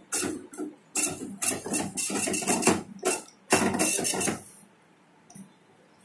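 Epson dot-matrix slip printer printing the grain analyzer's result, a line at a time in quick clattering runs with short gaps between them. It stops about four and a half seconds in.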